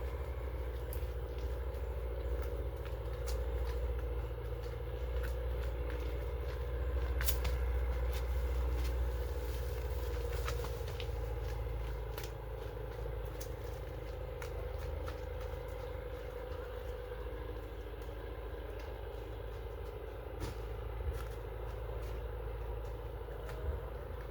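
Steady low rumble of a running engine, with scattered light clicks and crackles over it.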